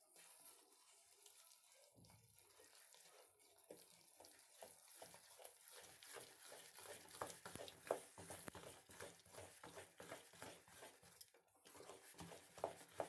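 Faint wet clicks and slaps of thick maalpua batter being beaten by hand in a stainless steel bowl, worked smooth. The clicks come quick and irregular and grow busier after the first few seconds.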